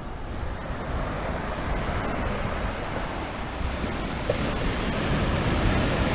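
Ocean surf breaking and washing up the sand, a steady rushing wash that slowly grows louder, with wind rumbling on the microphone.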